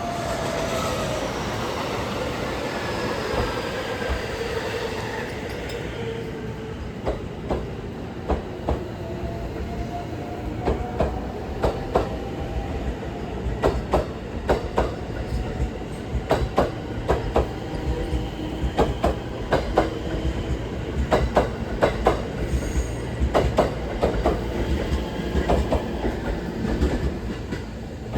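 A train running on the line: a falling whine over the first several seconds, then a long, irregular run of sharp wheel clicks over rail joints above a steady rail rumble.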